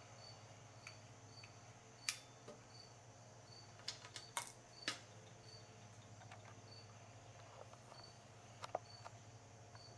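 Very quiet: a few light clicks and taps of metal as separated Mikuni carburetor bodies are handled, the loudest about two and five seconds in. Under them, a faint high chirp repeats about one and a half times a second, over a low steady hum.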